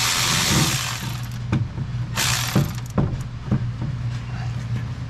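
A handheld power tool spins for about the first second, then runs again in one short burst about two seconds in, with several sharp metal clicks and clinks of tools in between and after. It is the work of loosening the turbo's mounting bolts.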